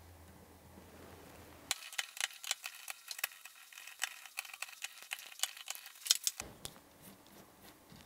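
Hex-bit screwdriver working the screws of steel scope rings on a rifle's Picatinny rail: a quick, irregular run of small metallic clicks and taps that starts about two seconds in and stops about a second and a half before the end. A faint steady hum comes before it.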